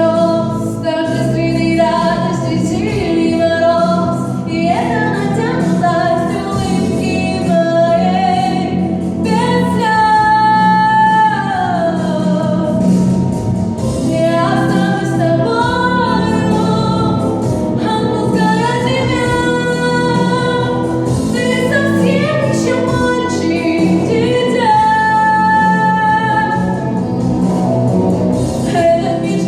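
A teenage girl singing long held notes that slide between pitches, over musical accompaniment.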